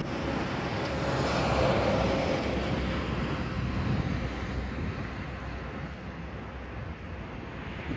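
Distant jet airliner on approach, a steady rushing rumble mixed with road traffic noise. It swells a second or two in and slowly fades.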